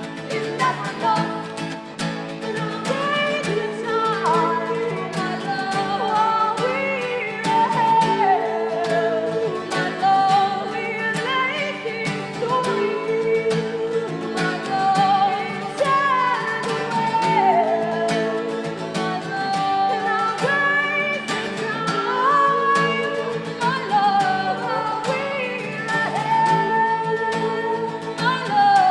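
Live acoustic song: guitar playing steady chords under a sung melody that glides up and down.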